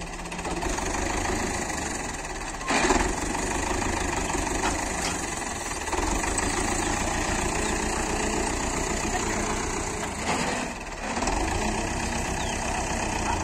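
Belarus tractor's diesel engine running steadily at low revs, briefly louder about three seconds in and dipping for a moment near eleven seconds.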